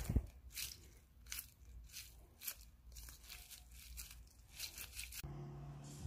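An Orbeez stress ball, a rubber ball filled with water-gel beads, squeezed repeatedly in the hand: a faint crunchy squish roughly once or twice a second. Near the end this gives way to a low steady hum.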